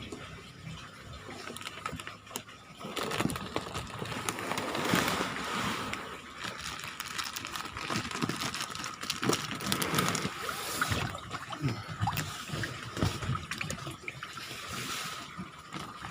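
Water sloshing and trickling in plastic koi shipping bags as they are handled and opened, with irregular crackling and clicks throughout.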